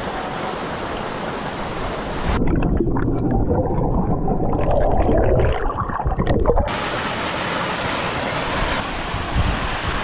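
Waterfall pouring into a rock pool, a steady rush of water. About two seconds in it turns muffled and low, with bubbling, as heard from underwater, for about four seconds, then the full rush of the falls comes back.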